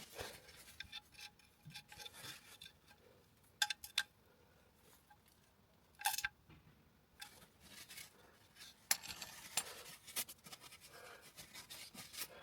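Faint, scattered metallic clicks and clinks with rubbing in between, from hand tools and small parts being handled during an oil change.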